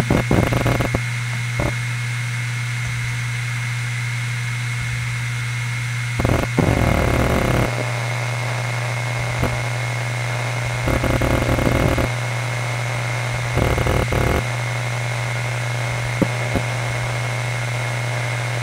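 HGST Deskstar NAS HDN724040ALE640, a five-platter 7200 rpm hard drive, spinning with a steady hum and a thin high whine. A rapid run of head-seek clicks dies away about a second in. After that come short bursts of seek chatter about six, eleven and fourteen seconds in, and a few single clicks, as the heads move during file access.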